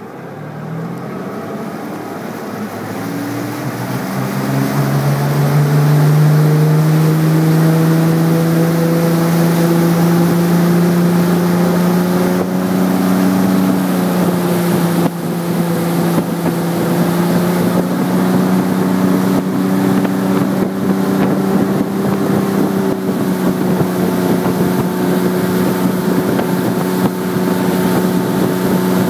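Tow boat's engine accelerating hard from low speed, its pitch and loudness climbing over the first five or six seconds as it pulls a kneeboarder up out of the water, then running steadily at towing speed.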